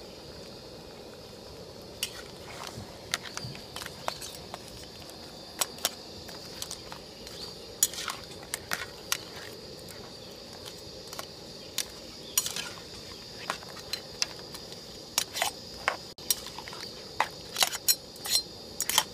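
Perforated metal ladle stirring a thick crab curry in a wide metal kadai. It clinks and scrapes against the pan and the crab pieces in irregular knocks, which come more often near the end.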